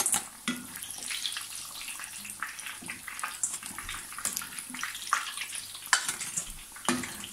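Breaded potato-and-chicken patties frying in hot oil with a steady sizzle. Several light clicks and scrapes come from a perforated metal skimmer as it lifts the patties out of the pan into a metal colander.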